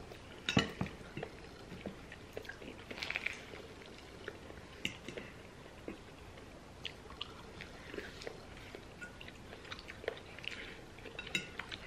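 Close-miked chewing and mouth sounds of people eating pasta and garlic bread, with scattered small clicks of a fork against a plate. The loudest clicks come about half a second in.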